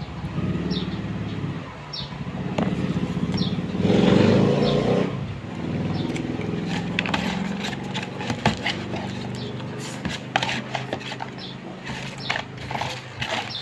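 A motor vehicle engine runs with a steady low hum that swells louder about four seconds in. Scattered sharp clicks and crackles join it in the second half.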